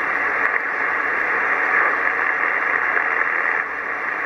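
Steady hiss of electronic static, a TV-static sound effect, even throughout with no tone or rhythm in it.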